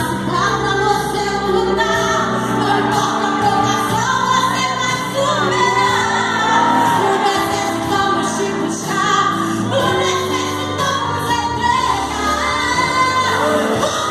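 Live worship music: voices singing a melody over a band accompaniment, with the sound of a large hall.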